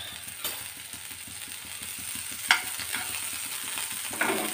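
Butter sizzling as it melts in a hot nonstick pan, a steady faint hiss, with two sharp clicks about half a second and two and a half seconds in and a brief clatter near the end.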